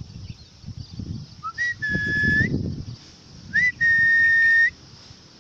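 A person whistling two long, steady, flat-pitched notes, each with a short upward slide at the start and end, as a call to a pet bird to come home. A low rustle sounds under the first whistle.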